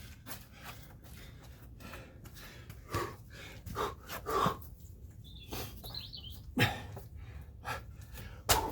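A man breathing hard through a Navy SEAL burpee, with several sharp thuds as he drops and lands. A bird chirps briefly in the middle.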